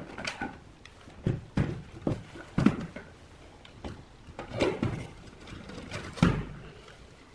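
Irregular clicks and knocks of hard objects being handled and set down, a few with a dull thud.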